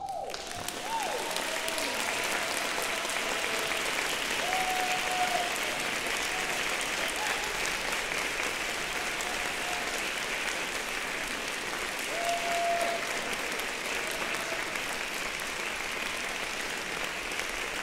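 Concert audience applauding steadily, with a few long cheering calls rising over the clapping.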